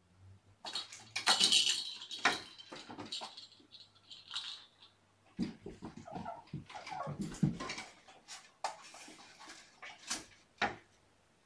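Kittens at play: a loud rattling clatter of toys about a second in, then scattered clicks, taps and scuffles as a kitten dashes about the room.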